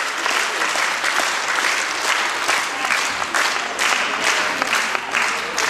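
A group of young gymnasts applauding: many hands clapping steadily.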